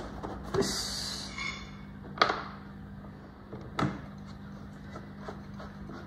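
Plastic battery cover on a 50cc scooter's floorboard being pressed shut, with a few separate knocks and a sharp click, then a screwdriver turning its retaining screw with faint small ticks. A brief hiss about a second in, and a steady low hum throughout.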